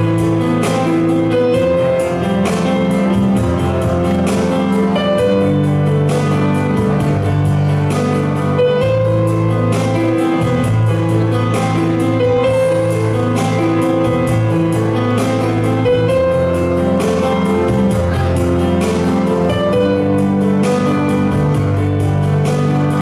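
Instrumental backing music with sustained bass notes, a melody on top and a steady beat.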